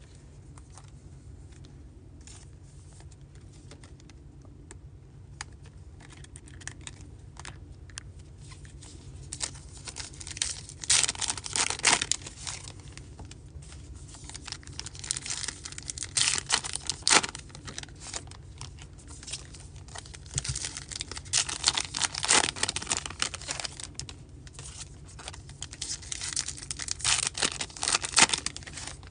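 Baseball card pack wrappers being torn open and crinkled in the hands, in repeated bursts of crackling from about a third of the way in, after a quieter stretch of light taps as cards are set down.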